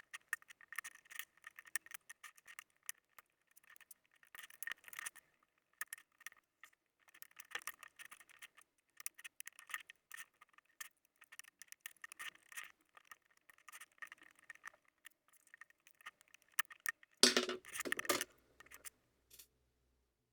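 Hands working on a laptop's plastic case and small parts: irregular light clicks and scraping, with a louder burst of handling near the end.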